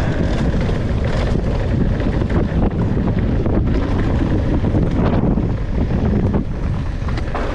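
Steady, loud wind buffeting an action camera's microphone on a downhill mountain-bike run, with scattered clicks and rattles from the bike over rough ground.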